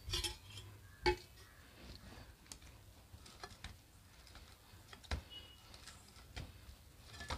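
Hand pressing and kneading oiled dough in a stainless steel bowl: faint soft handling sounds with a few light knocks, the sharpest about a second in.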